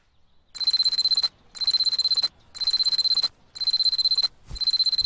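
Egg-shaped alarm clock going off: a loud, high trilling beep in regular bursts of about three-quarters of a second, repeating about once a second, starting about half a second in.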